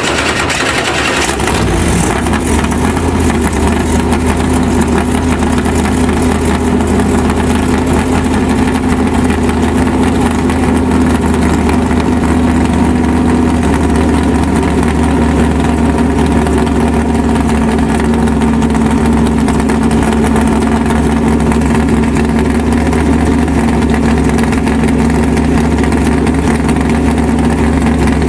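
A car engine idling steadily and loudly, its even note changing slightly in pitch about halfway through.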